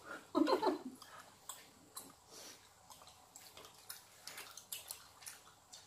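Quiet eating sounds: scattered small wet clicks and ticks of chewing and of plastic utensils against the food, after a brief bit of voice just at the start.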